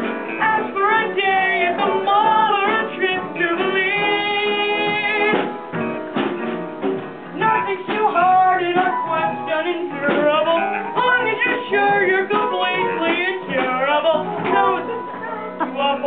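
Live musical-theatre song: young voices singing over band accompaniment.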